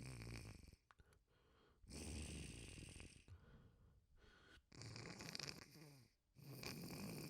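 A person's congested nose blowing and sniffling wetly, in about four noisy bursts of a second or so each, with short pauses between them.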